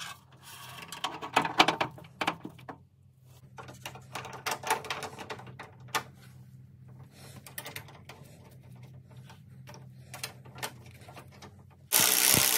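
Metal latch parts clinking and clicking in hand as a door latch mechanism is fitted into a Porsche 968 door shell. In the last half-second a cordless power driver starts up loudly on the latch screws.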